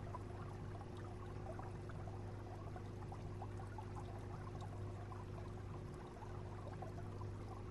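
Aquarium tank's water circulation: water trickling and bubbling over a steady low pump hum.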